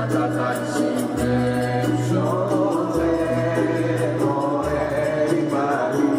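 A group of voices singing a chant-like song together, with a low note swelling and dropping about every second and a half to two seconds and a quick, light ticking running through it.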